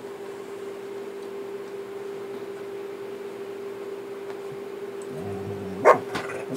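Dogs play-fighting: a short low growl from about five seconds in, breaking into one sharp snarling bark near six seconds, with a smaller snap just after, over a steady hum.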